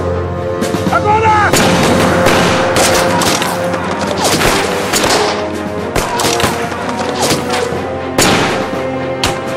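Volley of rifle gunfire: many irregular shots starting about one and a half seconds in, over background music with held notes.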